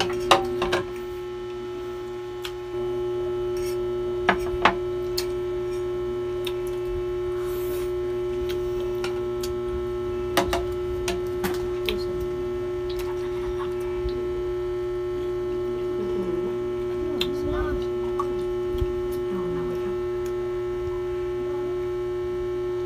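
A steady electrical hum, one pitched tone with several fainter steady tones over it, that steps up in level a few seconds in. Short clicks and clinks of spoons, plates and glasses break in now and then.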